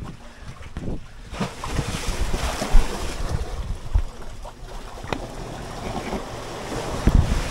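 Wind buffeting the microphone over the rush of sea waves washing in, the wash swelling about a second and a half in.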